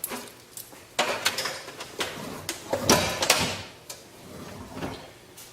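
Handling noise of a signal generator's leads being unhooked from a radio: a series of sharp clicks, knocks and scrapes, loudest in the middle and fading near the end.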